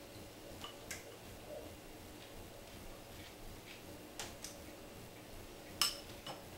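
Spoon clicking against a ceramic bowl while someone eats from it: a few separate sharp taps, two close together about a second in, two more past the middle, and the loudest one near the end.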